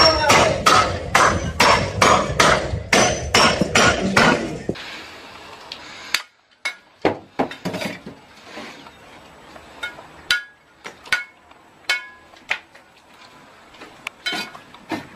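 Several sledgehammers striking a stake in quick rotation, a rapid, steady stream of ringing blows about three a second. About five seconds in this gives way to quieter, scattered sharp clinks and taps of bricks being handled and laid.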